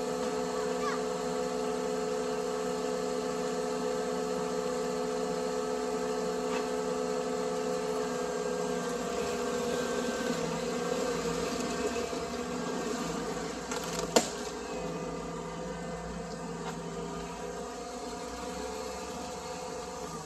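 Cat skid steer's diesel engine running at a steady pitch, a constant drone that grows somewhat quieter in the second half. A single sharp click about 14 seconds in.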